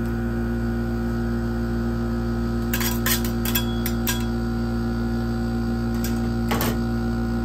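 Steady hum of an ice cream roll machine's cold plate running, several tones held together. A cluster of short sharp metal clicks and taps from the spatulas comes a little under three seconds in, and two more near the end.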